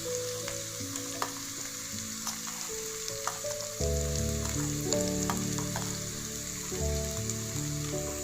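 Food sizzling in hot oil in a pan, with scattered clicks of a spatula stirring, over background music that gets louder about halfway through.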